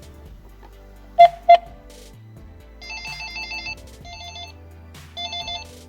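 Two short, loud confirmation beeps meaning the Logenex TeleDoorBell's phone ringer is now enabled. Then a telephone's electronic ringer trills in three short bursts with pauses between them.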